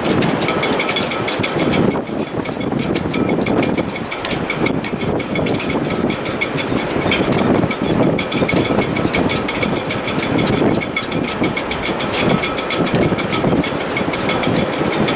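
Strong wind in a sailing rig's shrouds in heavy weather: a continuous surging roar that swells and eases with the gusts. Several thin, steady whistling tones from the taut wires run through it, with a fine rapid ticking high up.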